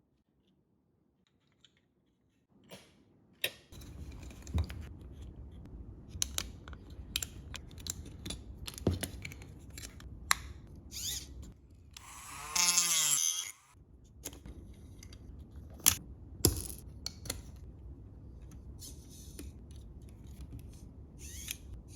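Handling noises from small objects and tools: many sharp clicks and knocks over a low hum, with one louder rasping burst that wavers in pitch, about a second and a half long, past the middle.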